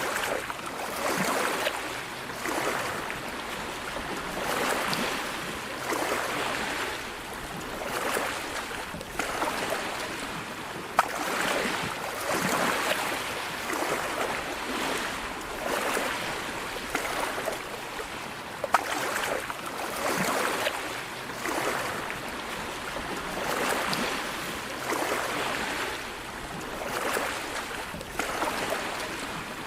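Sea waves washing ashore, a rushing hiss that swells and fades every two to three seconds, with a few sharp clicks.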